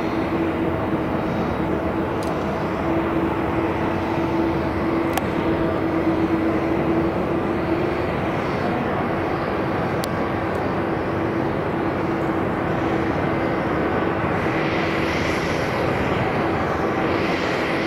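Twin-engine jet airliner on final approach with its landing gear down. Its engines give a steady rumble with a steady low hum, and a higher hiss builds over the last few seconds.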